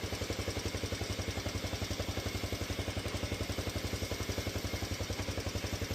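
Honda CT110's single-cylinder four-stroke engine idling smoothly, in an even putter of about a dozen pulses a second. It runs without cam chain rattle on its new cam chain and tensioner, with the valves' light tick audible, a sign their clearances are loose enough.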